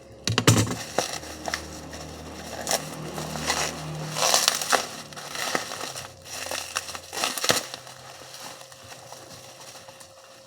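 Irregular crinkling and crackling, as of packaging being handled and crushed, loudest about half a second in and again around four seconds in, over a low hum in the first four seconds.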